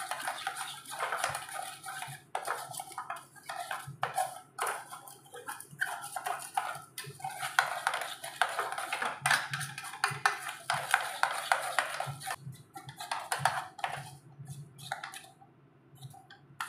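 Blue plastic spatula stirring and scraping a thick cocoa-and-milk mixture around an aluminium pot: a quick run of irregular scraping strokes that thins out near the end.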